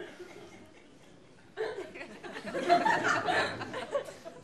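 Studio audience laughing: a burst of laughter starts about one and a half seconds in and fades near the end.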